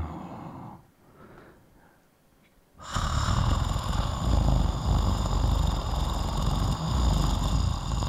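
A man imitating a cat's purr close into a microphone: a low, rough throat drone that starts about three seconds in and is held for about six seconds.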